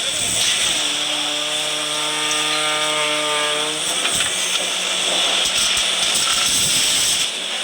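Concrete pump truck running loudly: a steady harsh mechanical noise, with a steady droning tone from about one to four seconds in.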